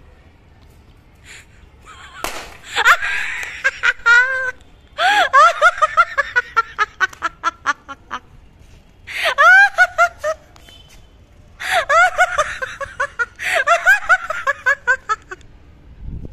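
A person laughing hard in four high-pitched bouts, each a rapid run of 'ha' pulses that falls in pitch.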